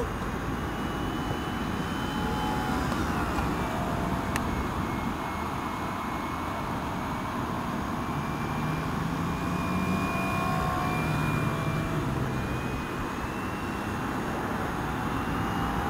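Small electric RC Spitfire model in flight, its brushless motor and scale four-blade propeller on a 2-cell LiPo giving a thin whine whose pitch slides up and down as it passes and the throttle changes, over a steady rushing background noise.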